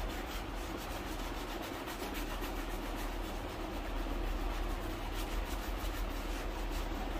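A shoe being rubbed in quick, repeated strokes during shoe polishing, over a steady low hum.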